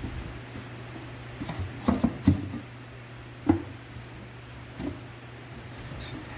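Wooden drawer parts being handled and set down: a cluster of clacks about two seconds in, a single sharper knock a little after the middle, and a lighter one later, over a steady low hum.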